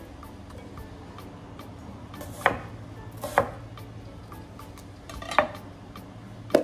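Chef's knife knocking against a wooden end-grain chopping board four times, spaced a second or two apart, as a red onion is cut.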